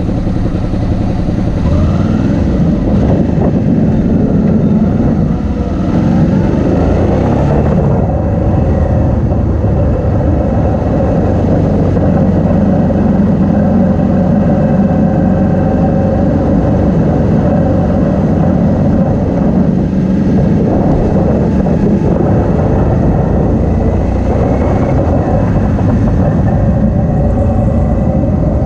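Motorcycle engine running while riding, its pitch rising a few times in the first several seconds as the bike pulls away and accelerates, then holding steady under road wind rush on the bike-mounted microphone.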